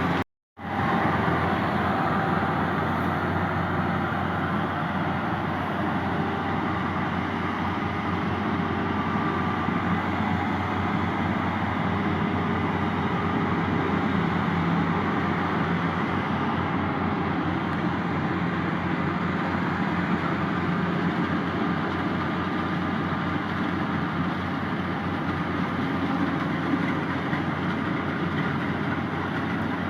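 Yanmar YH850 combine harvester's diesel engine and machinery running steadily. The sound cuts out completely for a moment about half a second in.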